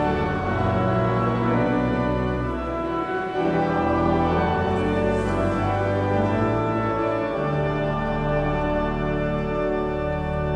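Large pipe organ, Woolsey Hall's Newberry Memorial Organ, playing slow sustained chords over held low pedal notes, the harmony shifting every second or two.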